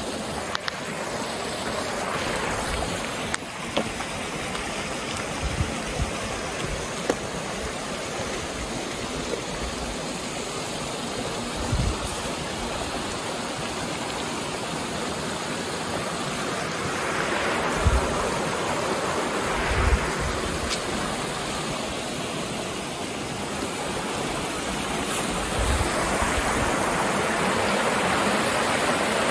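Steady rushing, water-like noise, with a few short dull low thumps along the way.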